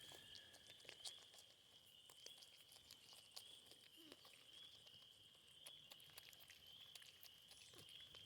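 Faint scattered clicks and crunches of porcupines eating, over a faint steady high-pitched whine.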